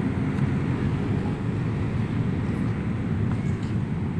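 Steady low outdoor rumble of city background noise, with no distinct events standing out.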